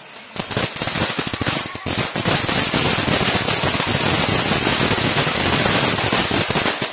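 Firework fountain spraying sparks: a loud, steady hiss packed with rapid crackling that starts just after the opening and runs without letting up until it falls away at the very end.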